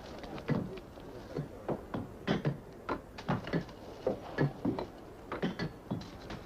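A run of irregular knocks and clatter, two or three a second, uneven in strength.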